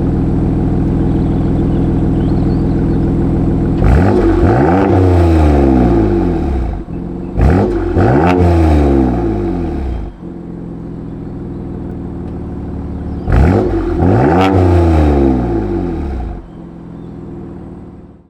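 BMW M2 Competition's twin-turbo straight-six running at idle and blipped three times on the throttle, each rev rising sharply and falling back to idle. It runs through the stock exhaust with the resonator deleted and the petrol particulate filter still fitted.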